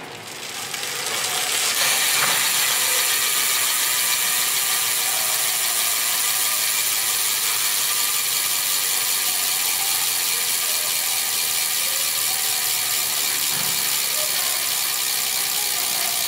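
Shimano Dura-Ace FH-9000 rear hub freewheeling: the ratchet pawls click so fast they blend into a steady high buzz, building up over the first couple of seconds.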